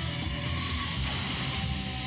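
Opening theme music: rock with strummed guitar over a steady beat.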